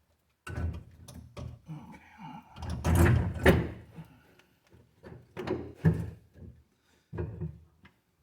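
Irregular knocks, clunks and scrapes of heavy metal engine parts being handled and set down during a diesel engine teardown, loudest about three seconds in.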